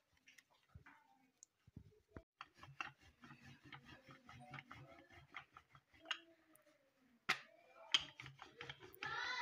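Wooden rolling pin rolling out chapati dough on a wooden board: a quick run of soft knocks and rubbing, about four a second, then two sharper knocks. A brief high-pitched call near the end.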